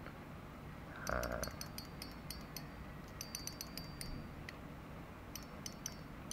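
DK 3000 spinning reel's drag clicking in three quick runs of sharp, high ticks as the spool is turned by hand against the drag. The clicker has been modified for a doubled, shrill click. A brief handling rustle comes about a second in.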